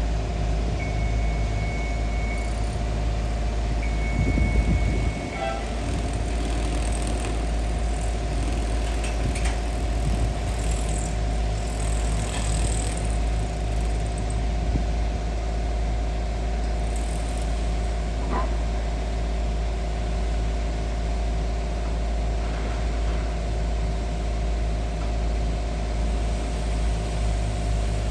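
A heavy vehicle's engine running steadily at idle, a constant low hum, with two long high beeps in the first few seconds and a brief louder bump after the second beep.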